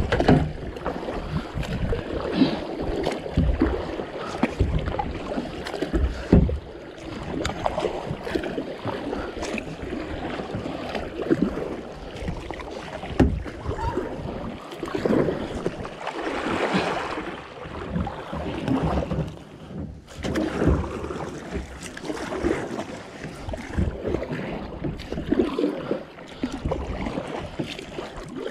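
Kayak paddle strokes, the blades dipping and splashing through pond water stroke after stroke at a hard racing pace.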